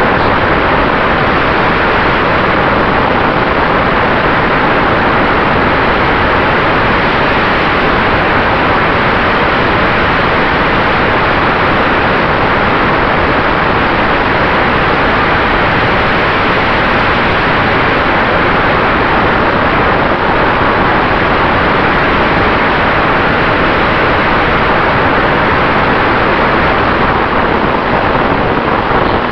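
Steady rush of wind and propeller noise picked up by a camera mounted on a radio-controlled scale Cessna 188 model airplane in flight, with a faint steady motor tone underneath.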